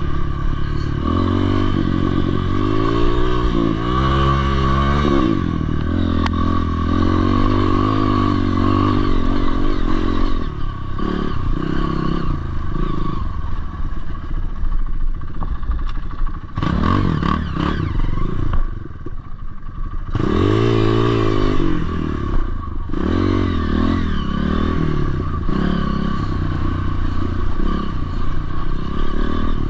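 Dirt bike engine revving hard, its pitch rising and falling again and again as the bike climbs a steep hill, with some rattling. A little past halfway the engine drops off for a moment, then picks up again.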